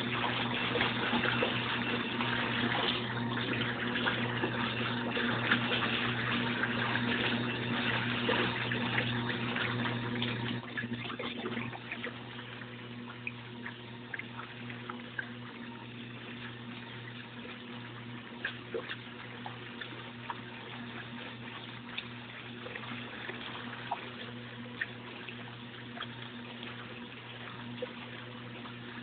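Arno Lavete 5.0 washing machine on its first rinse: water rushing and splashing in the tub over a steady low hum. The rushing drops to a quieter, splashier level about eleven seconds in.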